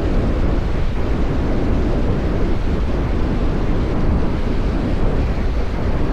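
Wind buffeting the microphone: a loud, steady rumble that is strongest in the lows, with no pauses or separate events.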